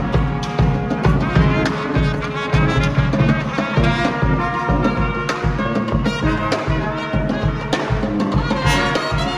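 Brass band music: trumpets and trombones over a steady, heavy drum beat.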